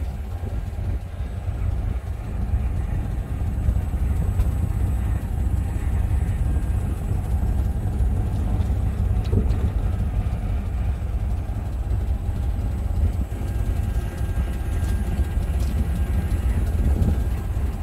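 Vehicle driving along, a steady low rumble of engine and road noise.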